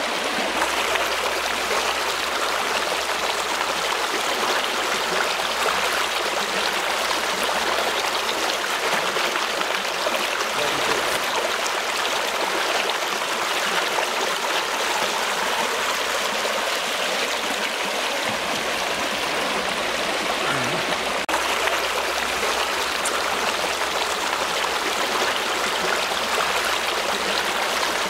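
Stream water running over rocks: a steady, even rushing.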